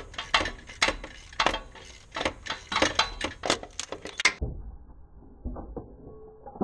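Ratchet wrench clicking in quick, irregular strokes, about three or four sharp metallic clicks a second, while a bolt on the starter motor is worked. The clicking stops about four seconds in, leaving a few faint dull knocks.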